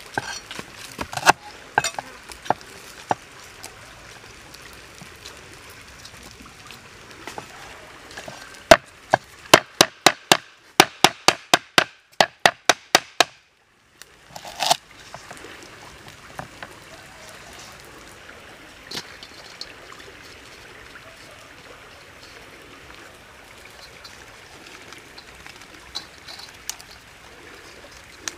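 Cleaver chopping lemongrass stalks on a wooden chopping block. A few knocks come at the start, then a quick run of sharp chops, about four a second, for several seconds around the middle, and one more chop after a short break. Otherwise there is a steady faint outdoor hiss with a few light knocks.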